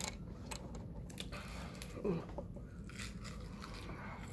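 Biting into and chewing crispy fried chicken: a run of crisp crunches and clicks, with one short, louder falling sound about two seconds in.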